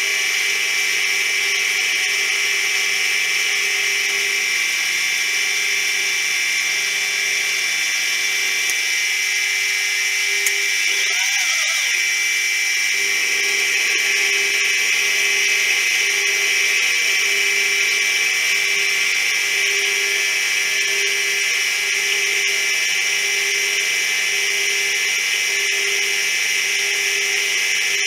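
Milling machine cutting a metal bar with an end mill under flood coolant: a steady high-pitched machining whine, with a lower hum underneath that pulses about once a second.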